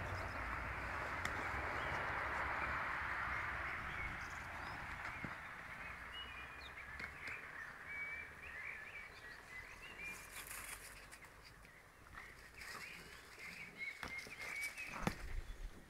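Outdoor garden ambience: a steady rushing noise that fades after about five seconds, then small birds chirping faintly, with a few light knocks near the end.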